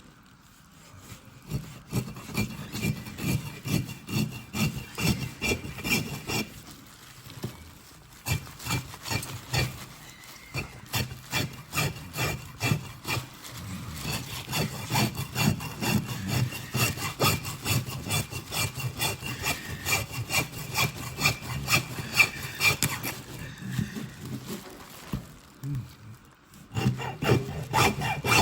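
Rhythmic back-and-forth rubbing or scraping strokes, about two a second, with two short pauses.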